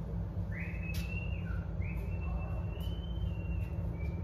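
High whistling notes, each held for about a second and stepping a little up and down in pitch, beginning about half a second in, over a steady low hum of shop noise.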